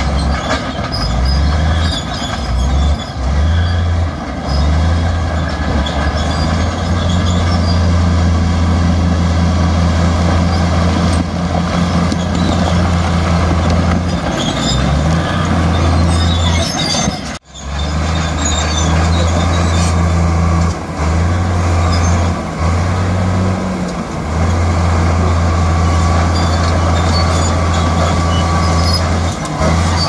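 Heavy diesel earthmoving machinery, a bulldozer or dump truck, with its engine running loud and steady and its load changing every few seconds. The sound cuts out sharply for a moment a little past halfway.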